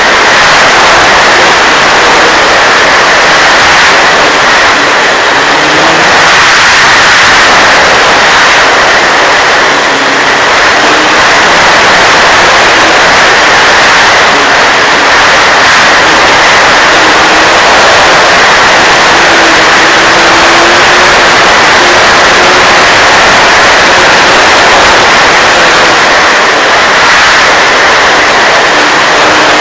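Steady, loud rushing noise of an RC model Mustang plane's motor and propeller running, with a faint hum that wavers in pitch underneath.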